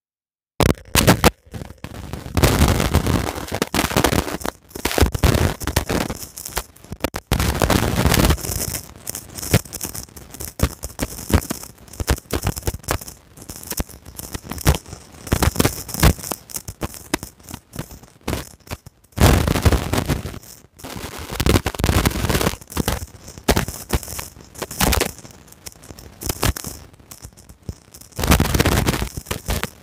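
Loud, irregular crackling and popping noise that comes in uneven surges, starting abruptly out of dead silence about half a second in.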